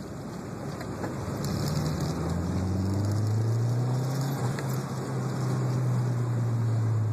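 Turbocharged Honda VTEC car engine under way, its note rising over the first couple of seconds, then holding steady at a low pitch with a brief dip midway.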